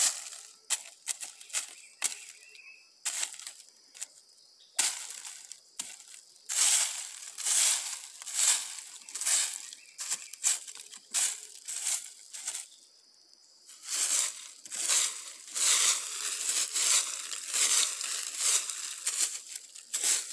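Dry fallen leaves on the forest floor crunching and rustling in a run of irregular crunches, with a short lull about two-thirds of the way through.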